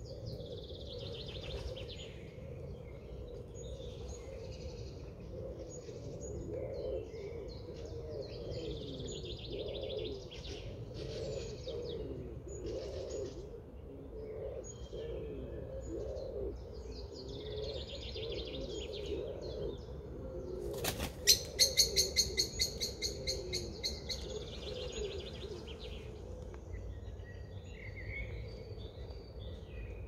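Outdoor birdsong chorus: many birds chirping and calling over a steady low rumble. About two-thirds of the way through, a bird takes off close by with a quick run of wingbeats that fades within a few seconds.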